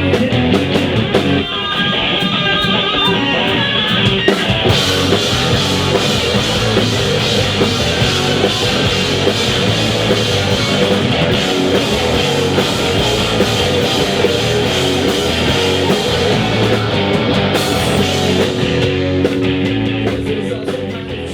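Rock song with drum kit and guitars, playing instrumentally without vocals and fading out near the end.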